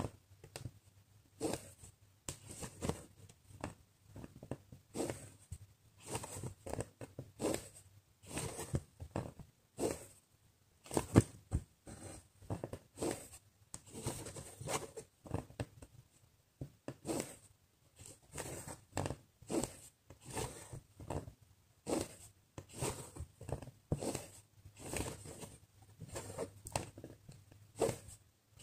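Needle and embroidery floss being drawn through cross-stitch fabric, stitch after stitch: a run of short scratchy pulls and light taps, about one or two a second, with one louder tap about eleven seconds in.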